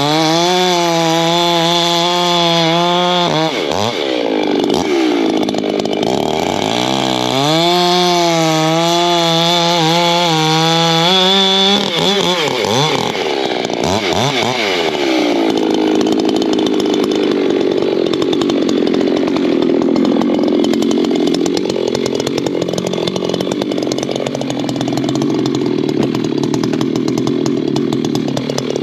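Ported Echo two-stroke chainsaw cutting oak firewood rounds. The engine is held at high revs for two stretches of a few seconds with drops between, then runs at a lower, wavering pitch for the second half.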